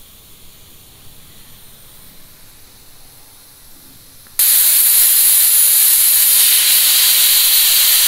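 A faint hiss, then about four seconds in a stovetop pressure cooker whistles: steam suddenly jets from its vent with a loud, steady hiss, the sign that the cooker has come up to pressure.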